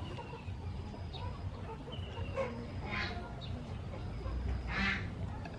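Chickens clucking, with two louder short calls about three seconds in and again near the end, over a low steady rumble.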